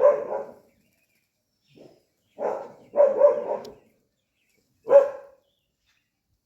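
Street dog barking in short bouts, about four times, with pauses between the barks.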